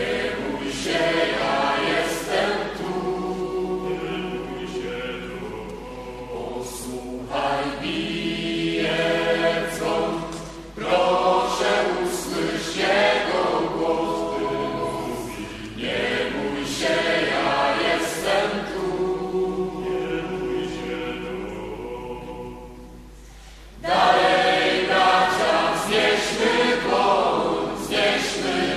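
A choir singing a Mass hymn in phrases of held notes. Around twenty-two seconds in the voices fade, then come back louder a second or two later.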